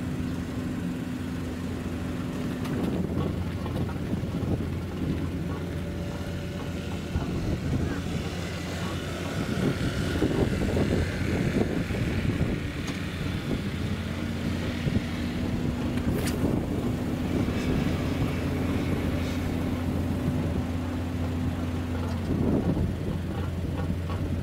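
Steady low engine drone, with a higher humming tone on top that stops about three seconds in and comes back partway through before fading near the end.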